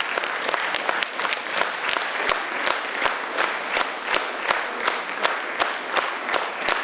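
Audience applauding, the clapping falling into a steady rhythm of about three claps a second.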